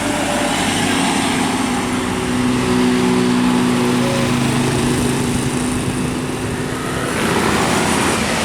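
Road vehicle engine running, a steady hum over road noise; the engine tones drop away about seven seconds in.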